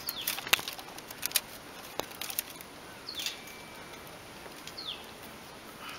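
Light clicks and rubbing as a plastic lacing strip is drawn through and around bamboo sticks, mostly in the first two seconds. A small bird chirps briefly twice, about three and five seconds in.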